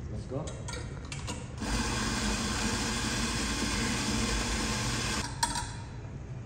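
Electric espresso grinder running for about three and a half seconds, grinding coffee beans straight into a portafilter, then cutting off abruptly. A few light clicks come before it starts, and one sharp click just after it stops.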